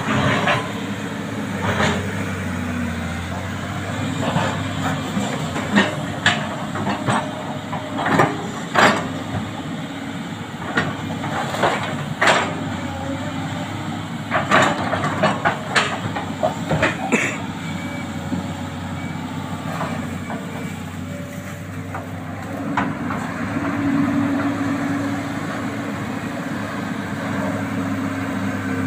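Sany crawler excavator's diesel engine running steadily under load while it digs mud out of a shallow trench. Many sharp clanks and knocks come from the working machine, and the engine hum swells louder for a few seconds about three-quarters of the way through.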